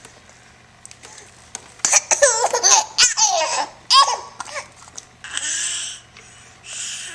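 A baby laughing and squealing: a run of high-pitched giggles starting about two seconds in and lasting about two seconds, then two breathy, hissing sounds near the end.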